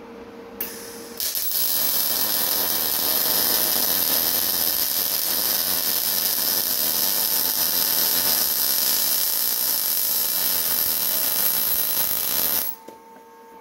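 Wire-feed welding arc on steel plate: a brief strike about half a second in, then a steady sizzling hiss for about eleven seconds, cutting off suddenly near the end.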